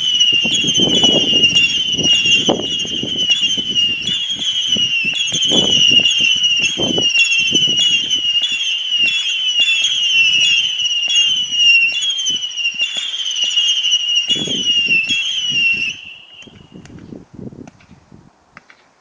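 Festival 240-shot barrage firework firing a long salvo of whistling shots: many overlapping shrill whistles, a new one about twice a second, each wavering and dipping slightly in pitch, over dull launch thumps and pops. The whistles cut off suddenly near the end, leaving a few faint pops.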